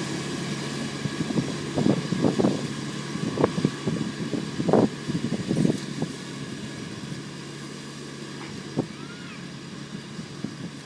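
Kubota ride-on mower's engine running steadily, with irregular louder bumps over the hum in the first half; it grows quieter from about six seconds in.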